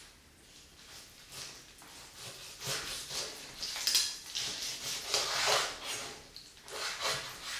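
Kitchen knife cutting through raw chicken thigh on a wooden cutting board, in uneven strokes that get louder about two and a half seconds in.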